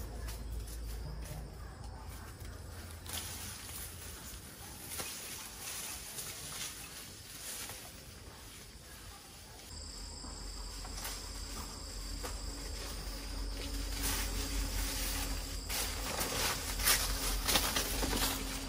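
Insects, such as crickets or cicadas, singing a steady high-pitched trill that comes in about ten seconds in. Scattered clicks and rustling run underneath.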